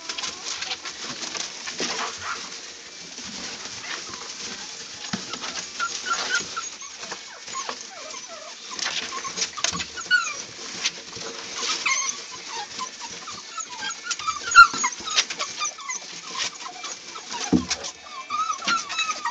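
Seven-week-old American Pit Bull Terrier puppies whining and yipping in many short, high calls, with rustling and scrabbling in wood-shavings bedding. A single sharp knock about three-quarters of the way through.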